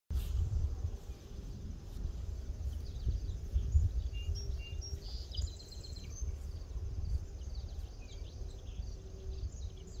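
Wind rumbling on the microphone in an open field, with birds chirping now and then and a faint steady insect trill.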